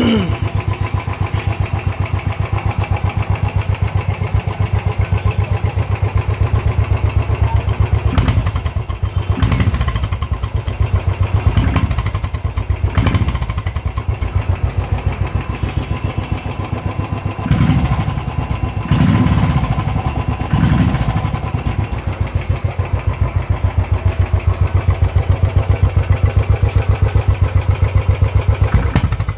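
Royal Enfield Thunderbird 500's single-cylinder engine idling through an aftermarket Royal Enfield off-road silencer, a steady bassy thump, blipped on the throttle several times in the middle. It was started from cold moments earlier and is hesitating a bit.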